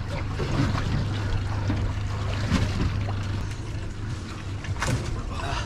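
Ambience aboard a small fishing boat at sea: a steady low hum under an even wash of wind and water noise.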